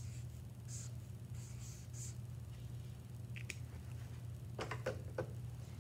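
Felt-tip marker writing on chart paper: about five short scratchy strokes in the first two seconds. Then a few light clicks and knocks, about three and a half and five seconds in.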